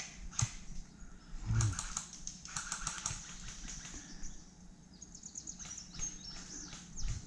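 Footsteps rustling and crackling through leaf litter and undergrowth: irregular clusters of dry snaps and clicks, with a low thud about one and a half seconds in.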